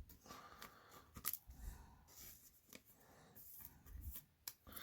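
Near silence with a few faint clicks and light rustling from trading cards being handled and set down.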